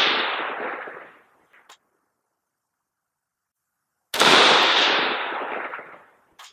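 A Colt 6720 lightweight AR-15 carbine fires a single 5.56 mm M855 round about four seconds in, and the report dies away over about two seconds. At the start, the echo of the previous shot is still fading, with a faint click between the two.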